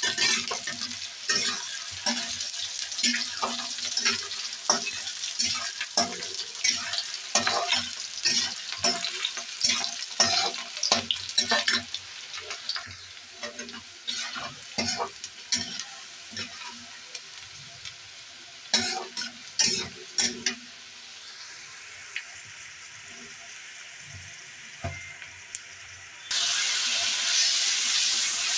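Onion and green chillies sizzling in hot oil in a kadai, with a spatula scraping and tapping against the pan in quick strokes. The stirring thins out about halfway through, leaving a quieter sizzle with a few knocks, and near the end the sizzle suddenly turns loud and steady.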